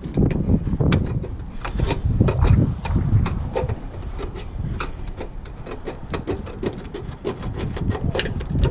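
Aluminum eavestrough being cut with tin snips: a run of sharp snipping clicks and crunches over a low rumble.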